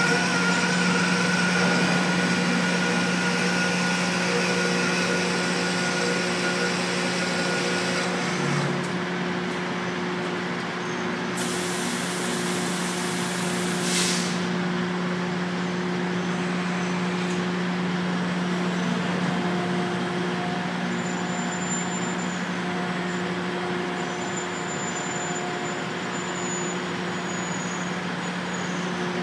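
Grain loading spout pouring grain into a hopper-bottom trailer: a steady rushing of falling grain over a constant machinery hum. About halfway through, a sharp hiss of air lasts about three seconds.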